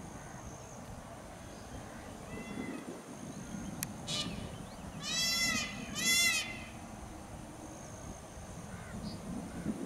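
Indian peafowl calling: two loud calls back to back about five seconds in, each rising and falling in pitch, after a shorter, fainter call about a second before.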